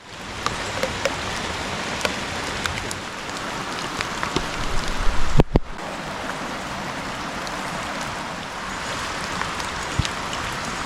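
Heavy rain falling, an even hiss scattered with sharp ticks of individual drops. A few louder knocks land about five seconds in.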